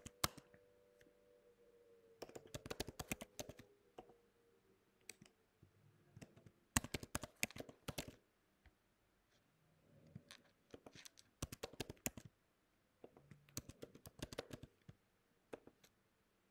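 Faint typing on a computer keyboard: quick runs of keystrokes in several short bursts, with pauses between them.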